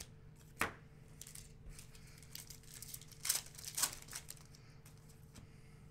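A trading-card pack's wrapper crinkling and tearing as it is ripped open, in a few short crackly bursts, with a sharp click about half a second in.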